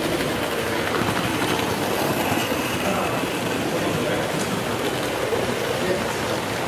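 OO-gauge model trains running on metal three-rail track, a steady rattling rumble, under the background chatter of a crowded exhibition hall.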